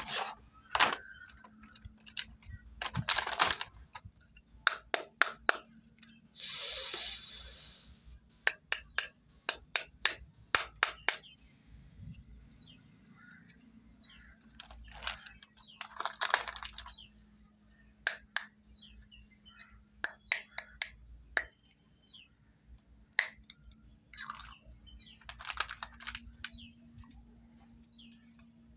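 Small plastic toy makeup pieces and their packaging being handled: scattered clicks and taps with several short bursts of rustling, the loudest lasting about a second and a half, some seven seconds in.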